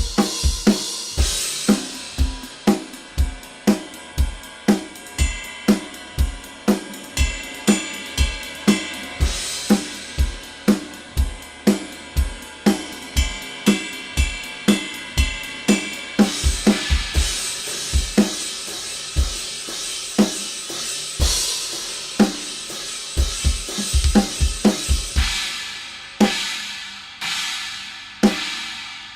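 Drum kit played with Centent XTT cymbals: a steady kick-and-snare beat under ringing cymbal wash, ending with a few big cymbal crashes left to ring out.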